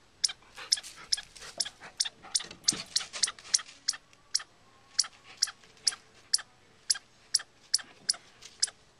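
Chipmunk giving sharp, high chip calls: the alarm call, repeated at a steady beat of about two a second, less regular and mixed with other small clicks in the first half.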